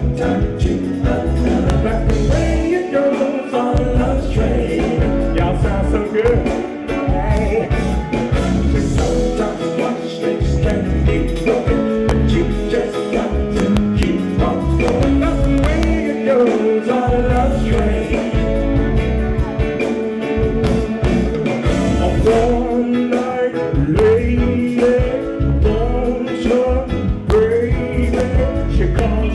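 Live R&B/funk band playing, with bass, drums and guitar under a singing voice.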